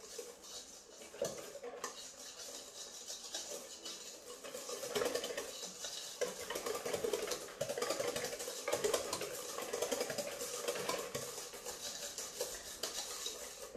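Hand whisk beating egg yolks, sugar and cornstarch in a bowl for crème pâtissière: a rapid, steady clatter of the wires against the bowl, growing louder about five seconds in.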